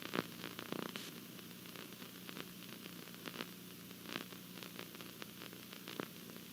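Faint steady hiss with a low hum and scattered soft clicks: background noise between announcements.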